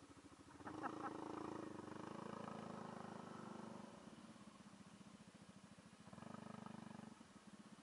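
Small scooter engine running with a fast, even pulse as the scooter rides along, picking up twice: about a second in for roughly three seconds, and again briefly near the end. A few sharp knocks come at the start of the first pick-up.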